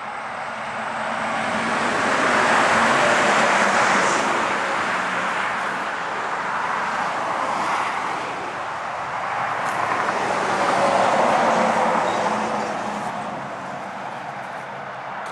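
Rushing noise of passing vehicles that swells and fades twice, loudest about three seconds in and again about eleven seconds in.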